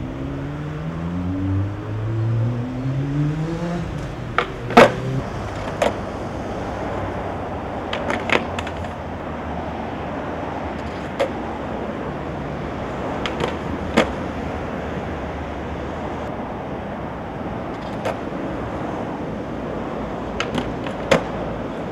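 Steady road traffic with a car engine revving up through three gear changes in the first few seconds, then scattered sharp clacks of a skateboard on pavement, the loudest about five seconds in and a quick cluster near the end.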